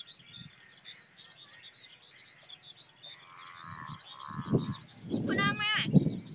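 Frogs croaking amid a dense chorus of high-pitched chirping; the low croaks grow louder in the second half, with a quick run of repeated calls near the end.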